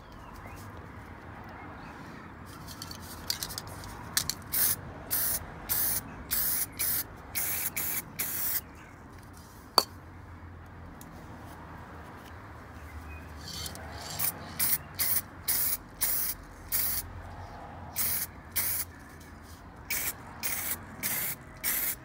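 Aerosol tin of car wheel silver spray paint hissing in many short squirts, in two runs with a pause of a few seconds between them. A single sharp click comes near the middle.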